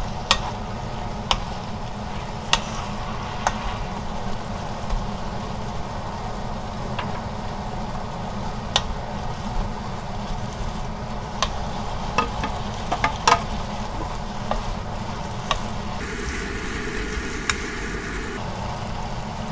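Sliced eggplant, carrot, onion and chilies sizzling in an oiled frying pan as they are stir-fried with a wooden spoon, which knocks sharply against the pan about a dozen times.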